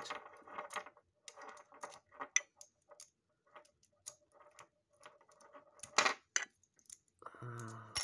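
Small scattered clicks and taps from a cheap plastic window sash cable lock being handled, a metal tool rattling in its wafer core, with one sharp click about six seconds in.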